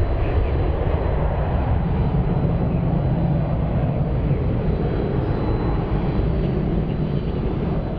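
Boeing 727-200's three Pratt & Whitney JT8D turbofans at takeoff power as the jet climbs away: a loud, steady deep rumble with a faint thin high whine above it.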